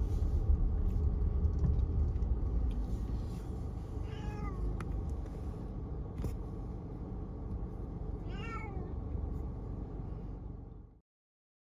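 A cat meowing twice, a few seconds apart, over the low rumble of a car. The sound then cuts off abruptly near the end.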